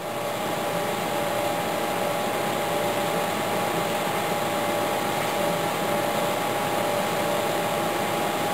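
APC rack-mount UPS running on battery, its mains supply unstable: a steady whir with a constant whine from the unit.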